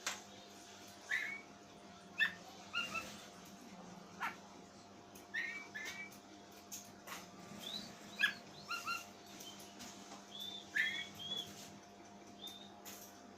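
Oriental magpie-robin giving short, scattered whistled chirps and squeaky notes at irregular gaps, more than a dozen in all. These are the odd-sounding calls of a kept kacer, with a faint steady hum underneath.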